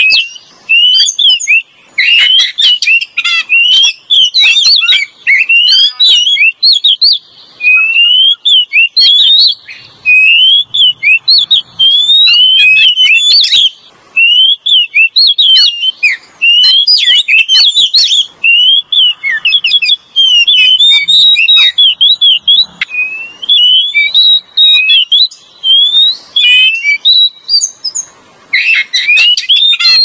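Oriental magpie-robin (kacer) song played as a bird-trapping lure call: loud, fast strings of varied whistles and chirps, one phrase after another with short pauses.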